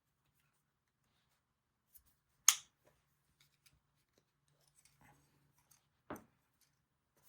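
A sharp click about two and a half seconds in and a second, duller knock near six seconds, with a few light taps between: small hard objects being handled and set down on a bench.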